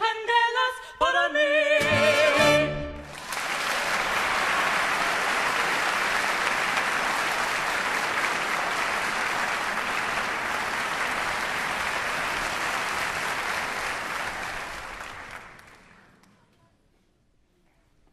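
A song's last sung notes, with music, end about three seconds in. An audience then applauds steadily, and the clapping fades out near the end.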